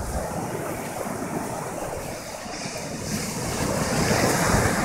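Ocean surf washing onto the shore, swelling louder near the end, with wind rumbling on the microphone.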